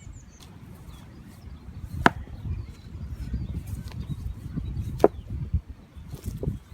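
Two sharp knocks of stone striking stone, about three seconds apart, as rocks are set down to build a fire-pit ring, each with a brief ringing tail. Wind rumbles on the microphone throughout, with faint bird chirps.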